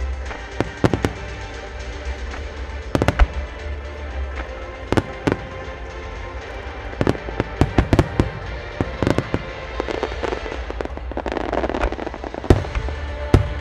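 Aerial firework shells launching and bursting in a rapid, irregular series of sharp bangs, the loudest near the end, with music playing underneath.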